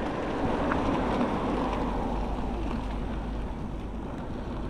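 Steady rushing wind and ride noise on a moving action camera's microphone, with a low rumble underneath, easing slightly toward the end.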